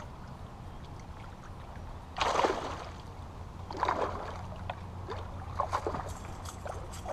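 A hooked bass splashing at the surface as it is brought to the bank: two loud splashes about two and four seconds in, then a few smaller ones, over a steady low background rumble.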